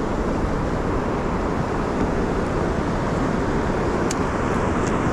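Steady rushing noise of wind and moving water on an open river, with a couple of faint ticks about four and five seconds in.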